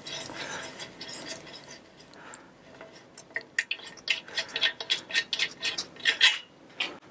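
Hands working parts on an old aluminium mountain-bike frame in a repair stand. A second or two of rubbing and scraping is followed, about three seconds in, by a quick, irregular run of sharp metallic clicks.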